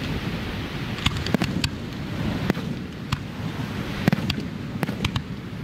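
Aerial fireworks display: shells bursting with sharp bangs at uneven intervals, over a steady low rumble.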